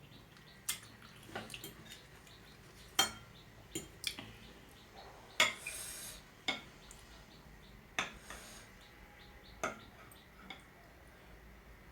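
Metal cutlery clinking and scraping against a bowl during eating, about a dozen sharp, irregular clicks with short gaps between them.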